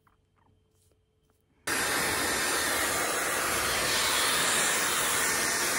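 Dyson Supersonic hair dryer switched on about a second and a half in, then blowing with a steady, even rush of air.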